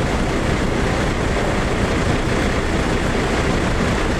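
Steady low rumble of tour bus engines and roadside traffic noise, with no horn sounding.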